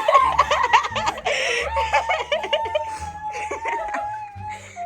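People laughing and giggling, then one long, high-pitched voice note held for about three seconds.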